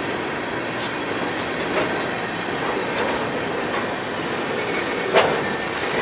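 Coal train's steel-wheeled coal cars rolling past: a steady rumble of wheels on rail, with a sharp click as wheels cross a rail joint about once a second, the loudest just after five seconds in.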